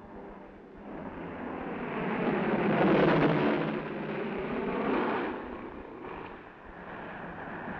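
C-47 transport's twin radial piston engines, growing louder as the plane comes in low over the landing zone, loudest about three seconds in, then fading.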